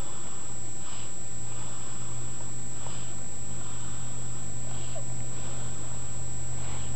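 A one-month-old snoring in sleep: a short breath sound about every two seconds, over a steady low hum.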